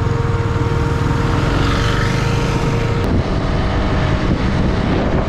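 Motorcycle engine running at road speed, with wind rushing over the microphone; a steady whine drops out at a cut about three seconds in.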